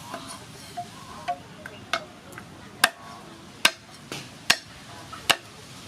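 A series of sharp knocks at uneven intervals, each with a brief ringing tail.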